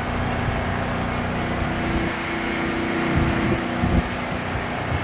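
Portable generator engine running steadily while it powers the sprinkler pump, with a few low thumps about three to four seconds in.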